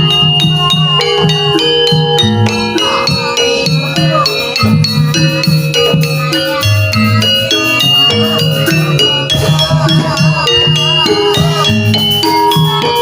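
Javanese jaranan music: gamelan metal keys ringing steady notes over a regular drumbeat, with rattling percussion. A wavering higher melody comes in around three seconds and again near ten seconds.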